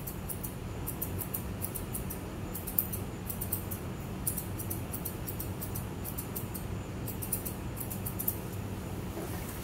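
Grooming shears snipping a Pomeranian's facial fur in quick runs of short, high clicks, over a steady low hum.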